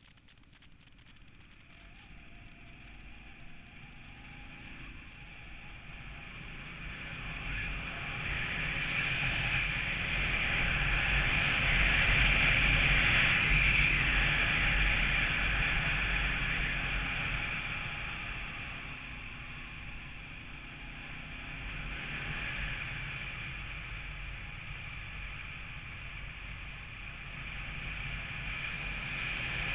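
Motorcycle riding at speed, with wind rushing over the camera microphone above a low engine and road rumble. It builds up from quiet as the bike gathers speed, is loudest about twelve seconds in, eases off, then rises again near the end.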